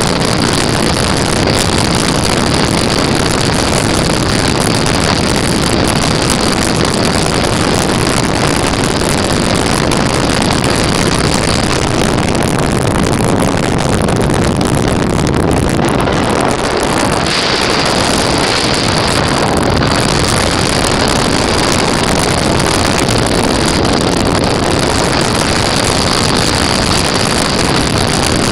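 Apollo Monsoon weight-shift trike's engine and pusher propeller running steadily in flight, with heavy wind rush on the microphone in the open seat. A steady high whine fades for a few seconds about halfway through, then returns.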